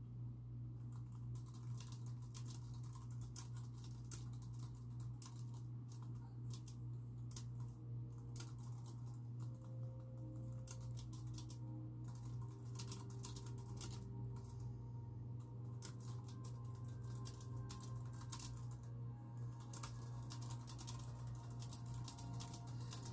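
Steady typing on a computer keyboard, quick irregular key clicks, over a constant low hum. Faint muffled television sound, with bits of music, comes through from another room.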